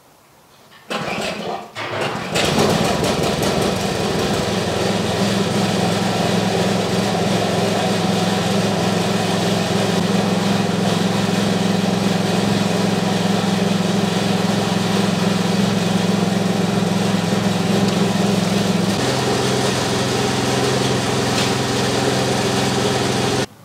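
Petrol snowblower engine starting: a couple of short bursts about a second in as it catches, then running steadily. Its pitch shifts slightly near the end, and it cuts off just before the end.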